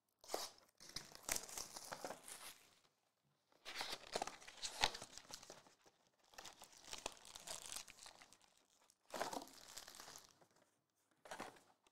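Plastic shrink wrap on a trading-card box being slit with a box cutter and torn off, crinkling in several bursts a second or two long with short gaps. Near the end the foil card packs rustle as they are pulled out of the box.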